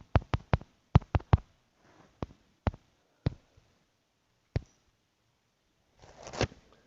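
Sharp clicks of a phone number being typed on a phone's number keypad, about eleven in irregular groups: four quick ones, then three, then single ones further apart. A short noisy burst comes near the end.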